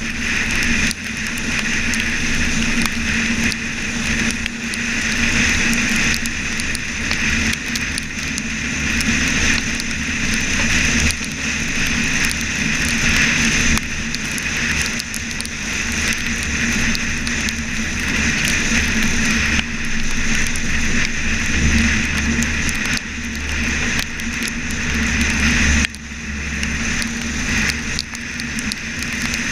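Subaru Impreza flat-four driving at speed on a soaking wet road: steady engine and road noise with a loud hiss of tyre spray and rain. The level dips briefly a few times, most sharply about 26 seconds in.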